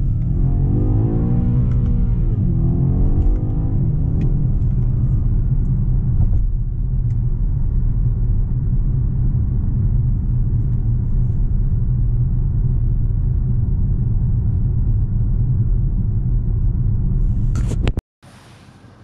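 BMW X6 M Competition's 4.4-litre twin-turbo V8 heard inside the cabin at highway speed. The engine note rises and falls a few times in the first few seconds, then settles into a steady low drone of engine and road noise that cuts off suddenly near the end.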